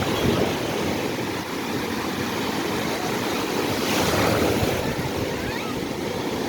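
Surf on the Black Sea: large, ocean-like swell waves breaking on a beach, a steady rush of water with one louder crash about four seconds in.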